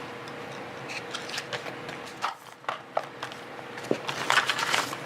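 Fishing tackle being handled and rummaged through in a tackle bag: scattered clicks and rustling of gear and packaging, getting busier in the last second or so.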